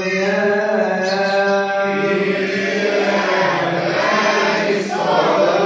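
Coptic liturgical chant: a man's voice chanting long, drawn-out melismatic notes, with a wavering turn of pitch about five seconds in.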